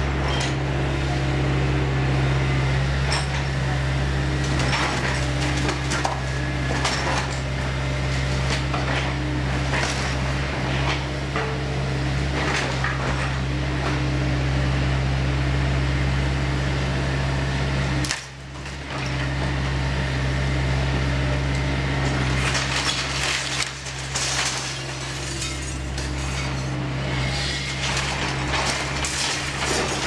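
Hydraulic excavator's diesel engine running steadily while its demolition shears break up the timber frame of a wooden building, with repeated cracks of wood and clatter of falling boards and debris. The engine sound dips briefly a little past halfway, and the knocks come thicker near the end.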